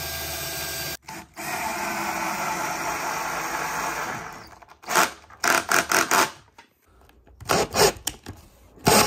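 Ryobi cordless drill boring pilot holes in MDF: a steady motor run for about a second, a short break, then another run of about three seconds that fades out. About five seconds in comes a series of short bursts, and another near the end, as the drill drives wood screws flush into the MDF.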